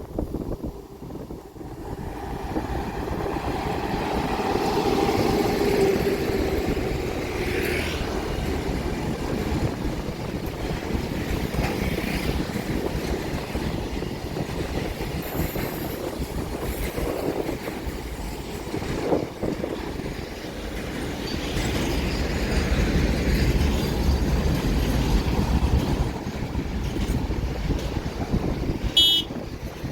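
A train passing on the track, its wheels rumbling steadily on the rails. The rumble swells about two seconds in and holds, and a brief high-pitched tone sounds near the end.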